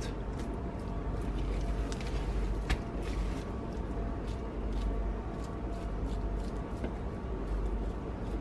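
Faint clicks and taps of a butcher's knife working through a beef topside on a plastic cutting board, with one sharper tap a little under three seconds in, over a steady low machine hum.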